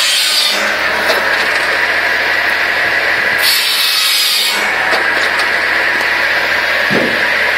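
Tractor-driven Balfor SC 700C circular firewood saw running with a steady whine over the tractor engine. Its blade cuts through a log at the start and again about three and a half seconds in, each cut lasting about a second.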